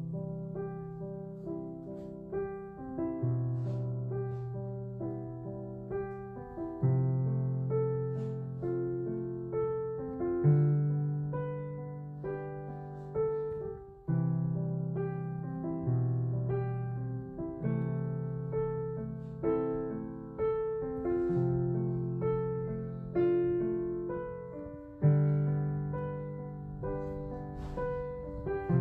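Background solo piano music: a gentle melody of decaying notes over repeated low chords.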